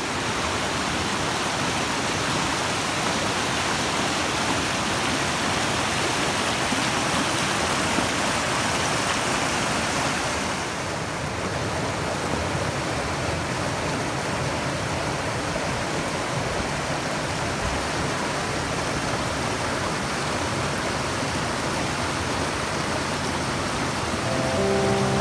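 River rapids rushing over and between mossy boulders: a steady, even sound of white water, changing slightly in tone about ten seconds in.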